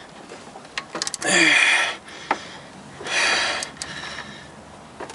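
Metal tool clicks and two short rasping bursts, about a second apart, as a bolt is worked to draw the pulley back onto the crankshaft of a 1999 GMC Sonoma engine that won't go on.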